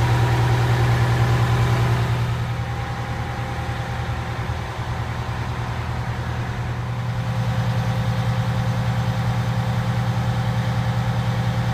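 Detroit 450 hp diesel engine of a 1991 Pierce Arrow aerial fire truck idling steadily, with an even low throb. It dips slightly in loudness a couple of seconds in and comes back up a little past halfway.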